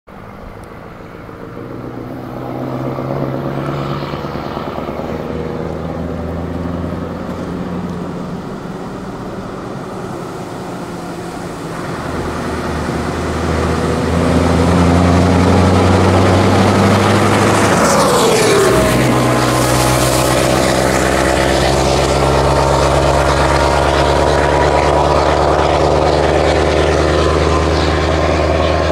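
Scania truck engine with a loud clattering exhaust, growing louder as it approaches. A falling sweep about two thirds of the way in marks it going by, and the engine runs on loudly after it.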